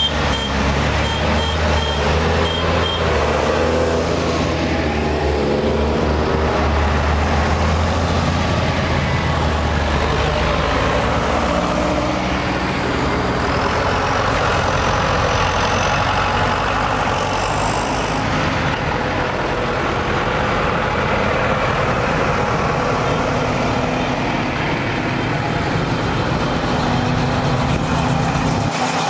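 A procession of farm tractors and cars driving past one after another, their engines running. A heavy diesel tractor engine is loudest for about the first ten seconds. Short high beeps repeat about twice a second in the first three seconds.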